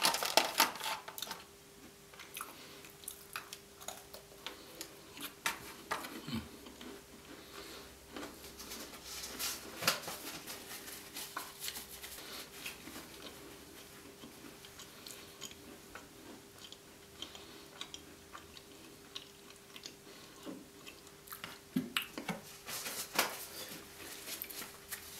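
Close-up chewing and crunching of gingerbread: a scatter of short crisp crunches and mouth clicks, busiest near the start, about ten seconds in and near the end. A faint steady hum runs underneath.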